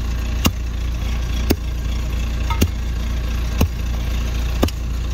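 Steel hand tamper striking the packed soil at the bottom of a post hole about once a second, five thuds in all, compacting the base. An engine idles steadily underneath.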